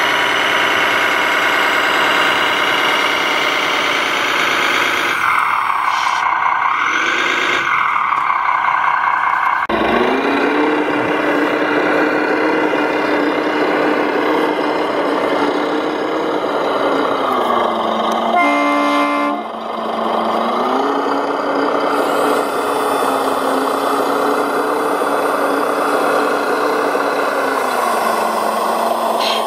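Engine sound of a radio-controlled Liebherr LRT 1100-2.1 crane model running steadily, with the revs rising and falling a few seconds in and the tone changing abruptly about ten seconds in. A brief horn note sounds about two-thirds of the way through.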